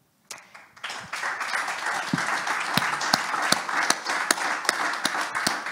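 Audience applauding, starting after a short hush and building about a second in into steady clapping.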